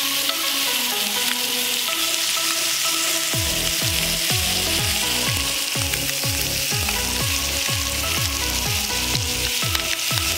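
Skin-on fish fillets sizzling steadily in oil in a non-stick frying pan. Background music plays alongside, and about a third of the way in it picks up a deep bass beat, about two drops a second.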